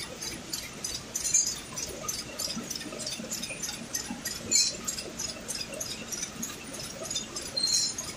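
Warp knitting machines knitting shade-net fabric: a fast, even mechanical clatter of several strokes a second over a steady machine hum, with a few sharper metallic clinks.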